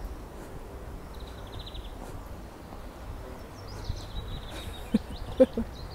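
Small birds chirping in short, rapid trills, twice, over a steady low background rumble; a few sharp clicks near the end are the loudest sounds.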